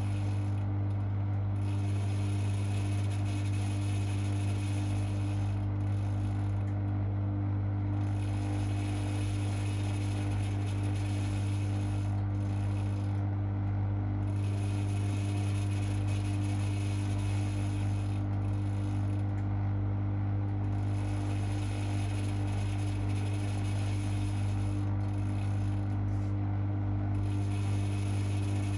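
Privileg 5020 washing machine running, its motor giving a steady, even hum with a mechanical rattle over it; the owner says the motor's sound betrays years of use in a laundry.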